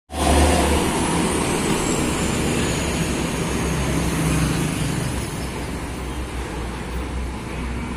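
Road traffic dominated by heavy diesel trucks and motorcycles passing close by: a steady, loud engine rumble with tyre noise, easing slightly towards the end. A faint high whine falls slowly in pitch over the first few seconds.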